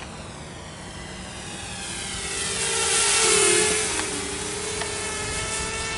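Walkera F210 FPV racing quadcopter's motors and propellers buzzing as it flies past, the pitch shifting with the throttle. It is loudest about three seconds in, then fades a little.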